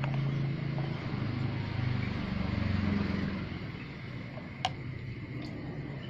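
A low motor hum that climbs in pitch for about a second midway, then drops away and grows quieter, with a single sharp click near the end.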